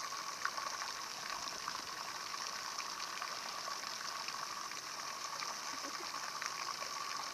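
Steady watery hiss of a swimming pool's rippling surface close to the microphone, with a few small splashes and clicks.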